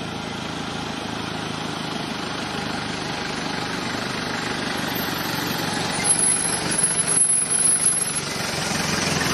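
A steady engine idling, with a few irregular louder bumps for a couple of seconds near the end.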